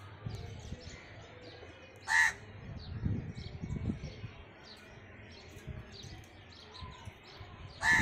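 House crow cawing: two loud, harsh single caws, one about two seconds in and one near the end. Small birds chirp faintly and repeatedly in the background.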